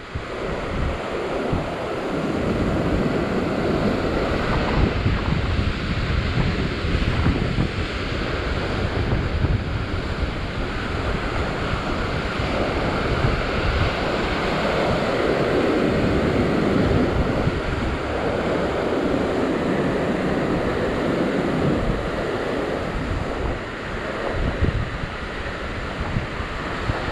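Sea surf washing and breaking against a rock ledge, rising and falling in swells, with wind rumbling on the microphone.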